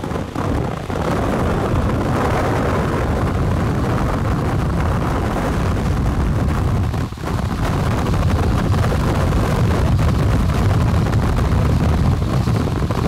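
Strong wind buffeting the microphone: a loud, steady low rumble, with a short dip about seven seconds in.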